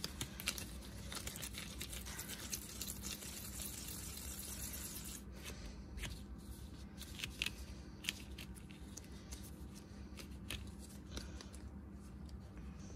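Quiet handling sounds of hands shaping pieces of wet paste: soft rustling with scattered light clicks and taps.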